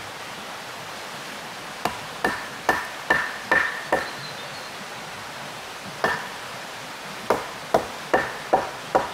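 Hammer blows in two runs of about six strikes each, roughly two a second, each leaving a brief ringing tone, over a steady rush of running water.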